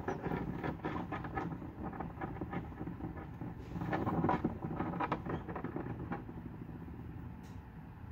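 Newly hatched quail chick scrabbling and pushing across the incubator's plastic floor, making two spells of quick scratchy clicks and rustles against a steady low hum.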